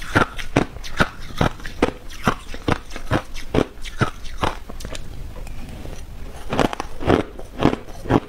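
Crushed ice being bitten and crunched in the mouth: sharp crunches at about two to three a second, with a pause of about two seconds just past the middle before the crunching resumes.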